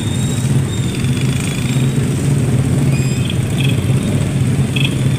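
Motor vehicle engines running steadily in slow traffic: a continuous low engine hum, with a few short faint high chirps about three seconds in and again near the end.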